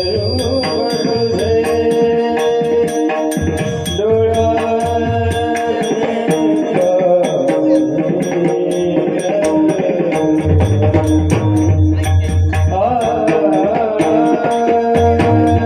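Devotional Marathi kirtan singing: a lead voice carrying a slow tune over held accompanying tones, with a hand drum and small cymbals keeping a steady beat.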